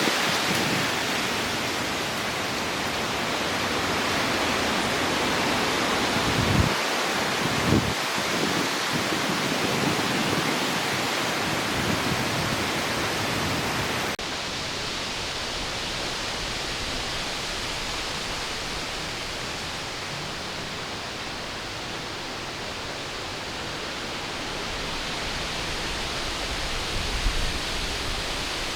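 Strong wind rushing steadily through the trees, with a couple of brief low buffets of wind on the microphone about seven and eight seconds in. The sound becomes slightly duller and quieter about halfway through.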